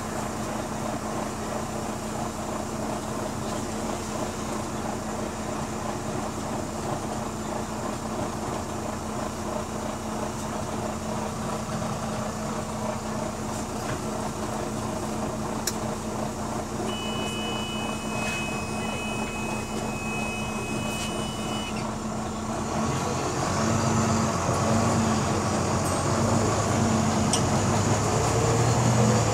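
Volvo B9TL double-decker bus's diesel engine idling steadily, then working harder and pulling away a little over two-thirds through, louder, with a rising whine near the end. A steady two-note beep sounds for about five seconds shortly before it pulls away.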